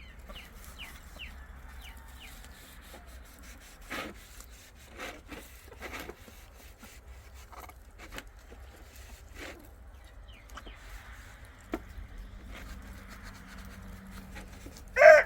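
Scattered scraping, rubbing and knocking from handling things around a chicken coop, with a few faint chirps in the first second or so. A rooster starts crowing loudly right at the end.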